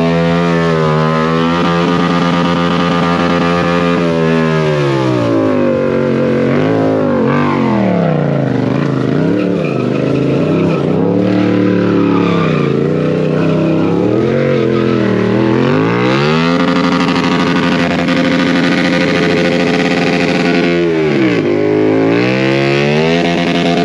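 Motorcycle engine revved hard and held high during a burnout, the rear tire spinning in place. The revs hold for a few seconds, fall and swing up and down repeatedly, then climb back and hold high again, with a short dip near the end.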